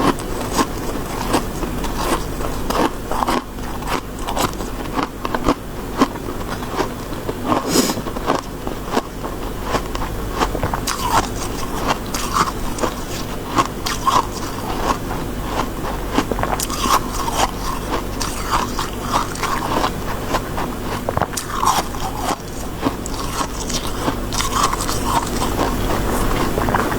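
Close-miked biting and chewing of soft, frosty freezer snow ice: a dense, irregular crunching that goes on without a break and then cuts off abruptly at the very end.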